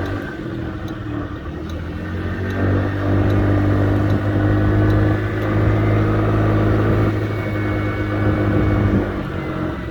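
Honda Dio AF62 scooter's 49 cc four-stroke single-cylinder engine running. It picks up about two and a half seconds in and eases back near the end.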